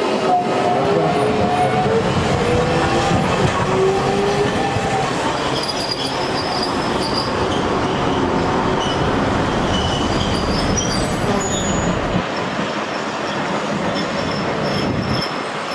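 Hiroshima Electric Railway streetcars rolling slowly over curved street track: a steady rumble of wheels and running gear, with high wheel squeals from the curves. A wavering tone slides up and down in the first few seconds.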